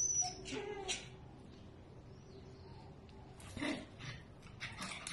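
Two small dogs play-fighting, giving short vocal sounds in three brief bursts: one at the start, one a little past halfway and one near the end.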